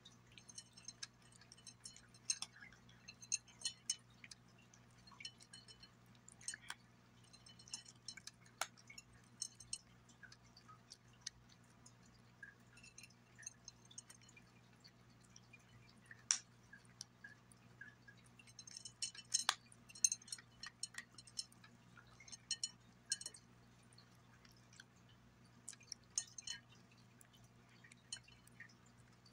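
Domestic cat chewing small dry pieces of chicken and egg from a glass plate: irregular bursts of crisp crunching clicks with short pauses between them, and a few sharper clinks against the glass, the loudest around sixteen and twenty seconds in.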